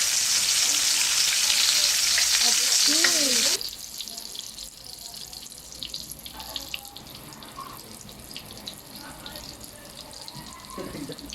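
Eggplant patties frying in hot oil: a steady loud sizzle that stops suddenly about three and a half seconds in, leaving only faint scattered clicks.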